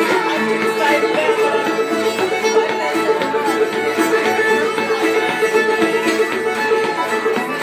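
Fiddle, banjo and acoustic guitar playing old-time string band music together, the fiddle's bowed melody over the banjo and the strummed guitar.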